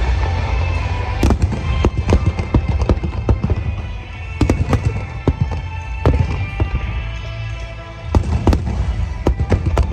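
Aerial fireworks bursting in a dense barrage of irregular sharp cracks and bangs, with clusters about a second in, around four to five seconds, and again near the end, over a continuous low rumble. Music plays underneath.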